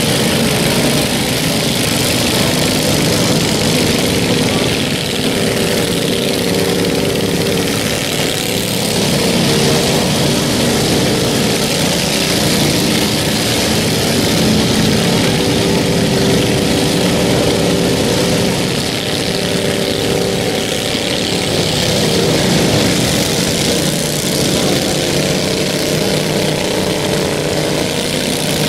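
Several riding lawn mowers' small engines running together in a steady drone, their pitch drifting up and down a little as they drive.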